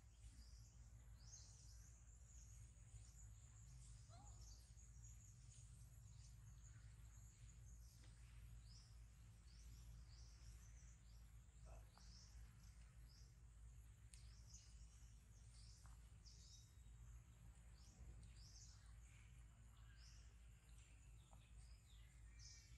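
Near silence: faint, short, high-pitched bird chirps repeating on and off over a low steady rumble.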